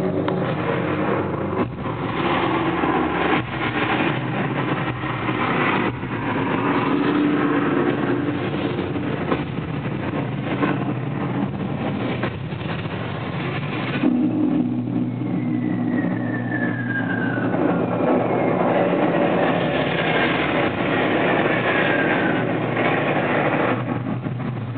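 WWII air-raid bombing heard from inside a bomb shelter: continuous heavy rumbling with repeated thuds, and two descending whistles in the second half.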